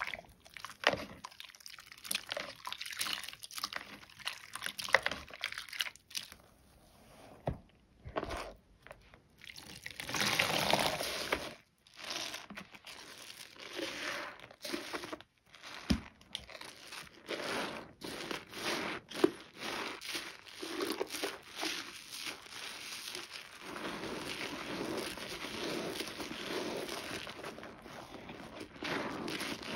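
Soaked, mushy bar soap being lathered into thick foam: wet squishing with many small crackles of the lather, in uneven bursts that settle into a steadier, denser stretch near the end.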